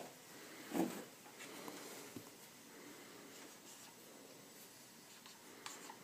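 Faint scratching of a dry-erase marker writing on a whiteboard, after a soft handling thump about a second in.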